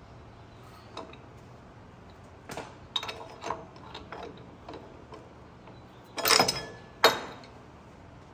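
Scattered clicks and taps of hand tools at work on a truck engine, with two louder knocks about six and seven seconds in.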